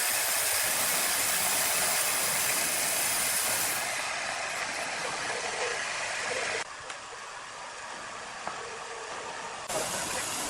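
Sawmill machinery running, a steady, dense hissing noise. It drops and changes suddenly about four, seven and ten seconds in.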